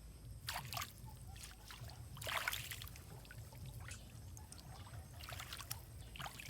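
Water splashing and trickling in short bursts, about three times, over a steady low rumble.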